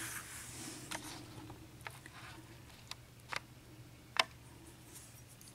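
About five light, scattered clicks and taps of small metal lock pins and parts being handled at a workbench, the sharpest a little past four seconds in.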